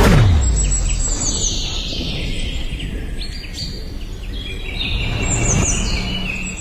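Birds chirping repeatedly over a steady low outdoor rumble. Right at the start a motor's whine drops in pitch and fades out.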